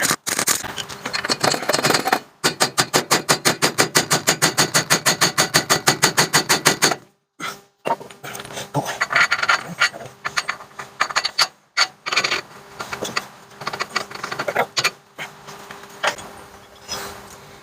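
Tools working on metal during truck suspension work: a run of rapid, even strikes about eight a second that lasts about five seconds, then irregular knocks, clanks and scrapes.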